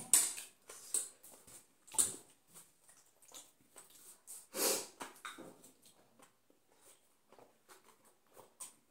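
Close-up eating sounds of chicken chow mein: short, irregular slurps and chewing noises, the loudest about halfway through.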